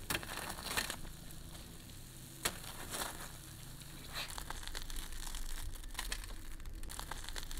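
Crisp, crumb-coated fried yogurt dough twists (mahua) crackling as they are handled: one is laid on a metal tray, and then one is torn open by hand. A few scattered sharp crackles.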